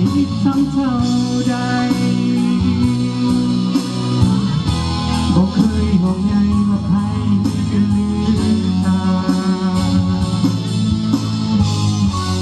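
Live band music: electric guitar over bass with a steady drum beat, in an instrumental passage between sung verses of a pop ballad.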